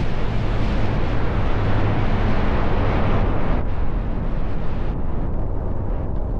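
Strong wind rushing and buffeting the microphone: a loud, steady roar with a heavy low rumble, easing slightly after about three and a half seconds.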